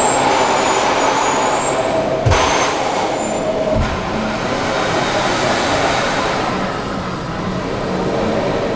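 Amusement-park ride machinery running: a steady rushing, rail-like noise with thin high squeals near the start, and a louder rush from about two to four seconds in.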